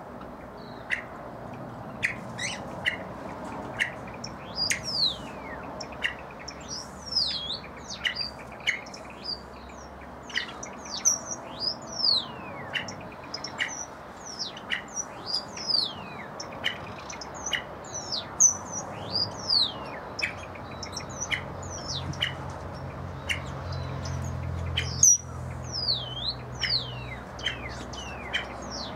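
Many small birds chirping: short high chirps and quick falling whistles, several a second, overlapping throughout. A low, steady rumble sits beneath them through the second half.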